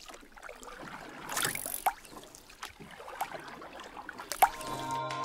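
Water splashing and trickling, with a bright splash about a second and a half in and a few sharp drips later. Music with sustained tones comes in near the end.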